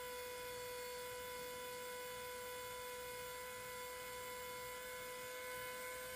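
Small electric motor of a Bohning cresting machine running steadily as it spins a wooden arrow shaft for painting, a steady hum with clear, unchanging high tones.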